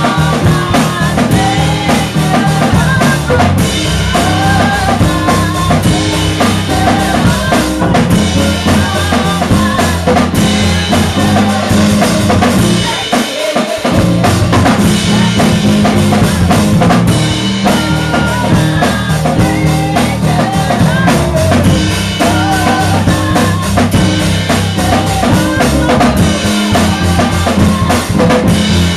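Live gospel music: a woman singing into a microphone over a drum kit and a band with steady bass notes. The low end drops out briefly about halfway through, then the band comes back in.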